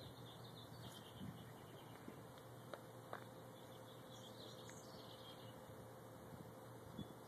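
Near silence: faint outdoor ambience with a few soft ticks and faint high chirps.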